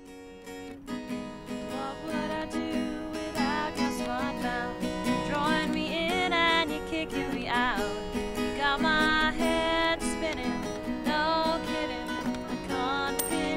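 Acoustic guitar strummed and picked as a song accompaniment, fading in at the start, with a wavering, sliding melody line over it.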